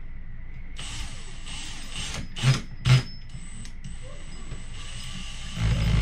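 Cordless drill driving a lag bolt through a TV wall-mount bracket into a wall stud, its motor whining steadily for several seconds. Two sharp knocks come a little after two seconds in, and the sound gets louder and deeper near the end.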